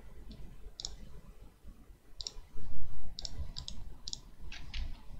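Computer mouse buttons clicking, about nine sharp clicks at uneven intervals, as lines are drawn in CAD software. A low bump on the microphone a little past halfway is the loudest moment.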